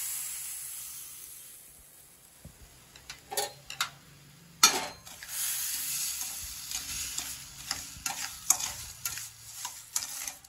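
Sugar poured into a stainless steel pan, its hiss fading over the first two seconds. Then a flat steel spatula stirs and scrapes the wet sugar grains against the pan bottom, with sharp metal-on-metal knocks. The loudest knock comes about four and a half seconds in.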